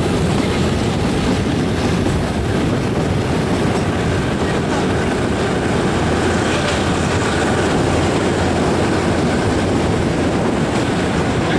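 Kalka–Shimla narrow-gauge toy train running, a steady noise of the carriage and its wheels on the track.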